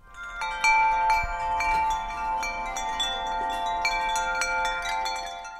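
Tinkling chimes: many small metal tones struck one after another at different pitches, each ringing on and overlapping the next, dying away at the end. The effect is bright and light-hearted.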